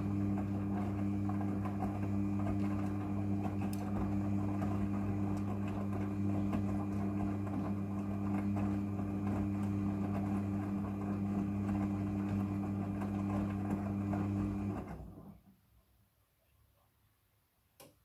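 Midea front-loading washing machine's drum motor running with a steady hum as the drum tumbles the laundry, then winding down and stopping about fifteen seconds in. A single faint click follows near the end.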